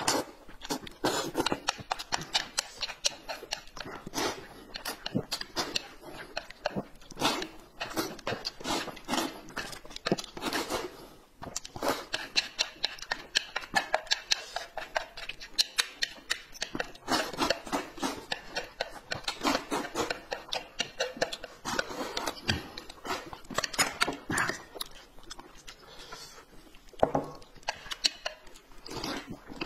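Noodles slurped and food chewed close to the microphone: a quick, irregular run of short smacks and clicks, with a brief lull about eleven seconds in.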